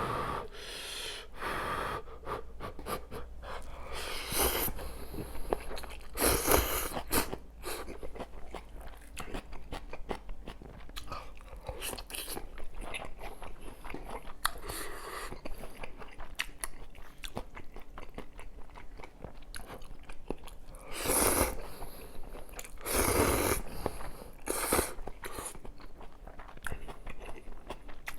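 Close-miked chewing and biting while eating kimchi kalguksu noodles and potato pancake: a steady run of small wet clicks. A few louder noisy bursts stand out, about 4 and 6 seconds in and again around 21 and 23 seconds.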